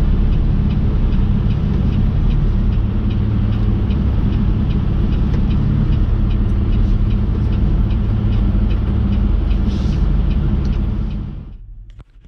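Semi truck's diesel engine idling steadily, heard from inside the cab, with a light regular ticking about three times a second. It fades out near the end.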